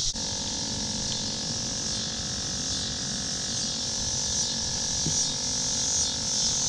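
Steady outdoor background: a constant high hiss and a steady hum over a low rumble, with no distinct event.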